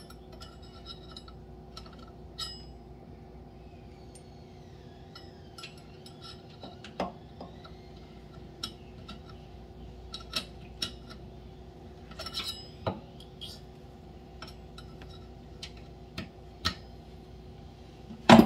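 Small scattered clicks and taps of a screwdriver and flashlight against a faucet handle and stainless steel sink as the handle's set screw is worked in, with one loud metallic clank near the end. A steady low hum lies underneath.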